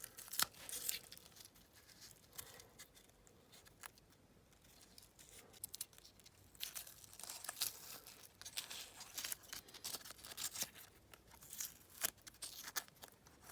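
Masking tape being peeled off a die-cast model car's fresh paint, a run of short crackling tears and crinkles that thickens in the second half.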